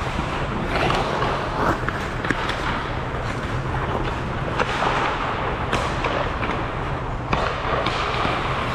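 Ice hockey play: skates scraping and carving the ice, sticks and puck clacking, with several sharp knocks, over a steady low hum.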